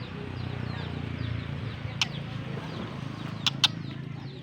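Birds chirping and clucking, with a few sharp clicks, one about two seconds in and two close together near three and a half seconds.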